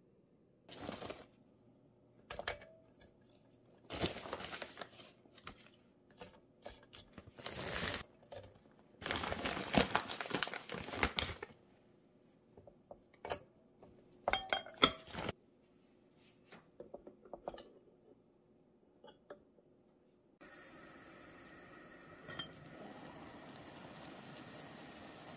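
Plastic packaging crinkling and rustling in irregular bursts, with a few light clinks and knocks as frozen dumplings are set into a metal steamer pot. About three-quarters of the way in a steady hiss starts suddenly: the electric steamer heating up and beginning to steam.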